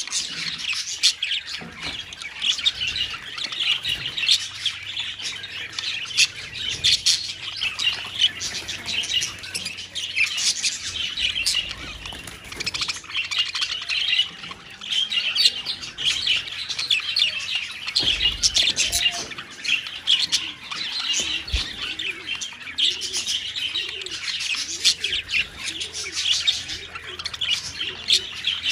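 A colony of budgerigars chattering and chirping continuously, many birds calling over one another in a dense, unbroken warble.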